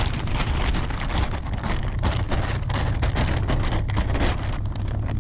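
Close, dense crackling and rustling of a plastic bag and jacket fabric being handled right against a chest-mounted camera, over a steady low rumble.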